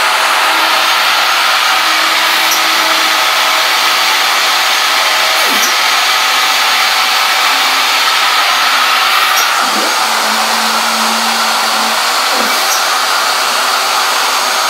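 CNC router gantry stepper motors whining in short steady tones that start, stop and change pitch with each move of a rapid dry run, with brief pitch sweeps as the moves begin. Under them runs a loud, steady rushing noise from another machine that is running.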